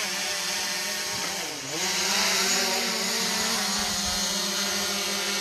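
DJI Mavic Pro quadcopter's propellers whining steadily as it comes down to land, the pitch dipping and recovering about a second and a half in.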